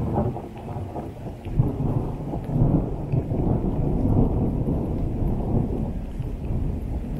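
Rushing water of a large spring-fed waterfall: a loud, steady low roar that starts abruptly.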